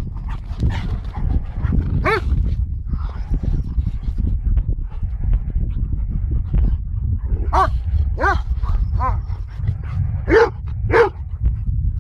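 Dogs barking at play: one short bark about two seconds in, then a run of five short barks in the second half, the last two loudest. A steady low rumble runs under them.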